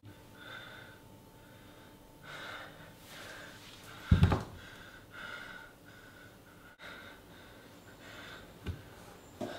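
A young man's heavy, ragged breathing and gasps, irregular and pained, from a knife wound to his foot. A loud thump comes about four seconds in, with a couple of lighter knocks near the end.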